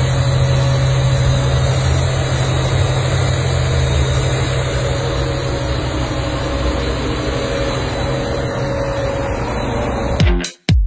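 Steady low drone of a motor vehicle running, a constant hum with no revving. Music with a dance beat cuts in near the end.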